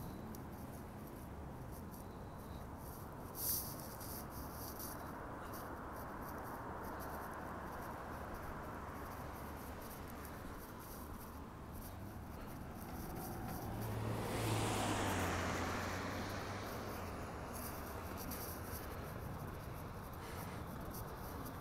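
Steady distant road-traffic hum, with one car passing on the road about fourteen seconds in, its tyre and engine noise swelling and fading over a few seconds. A brief click about three and a half seconds in.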